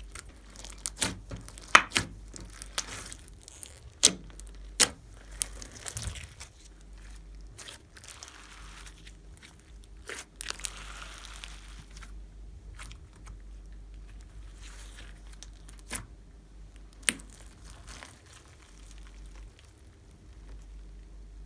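Clear slime being squeezed and stretched by hand, with sharp pops and crackles from trapped air, most of them in the first few seconds.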